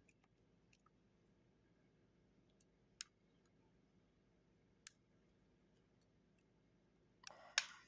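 Faint, sparse clicks of a lock pick working the pins of a Goal Z lock under tension: a few scattered ticks, two sharper clicks about three and five seconds in, and a brief clatter of clicks near the end.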